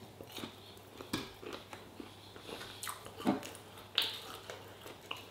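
A person biting and chewing a crispy coated chicken piece, with scattered small crunching clicks and a few sharper ones.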